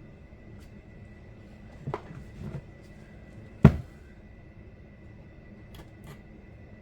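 Handling knocks from working on a chainsaw: a couple of soft knocks, then one sharp, louder thump, and two faint clicks near the end, over a faint steady high-pitched tone.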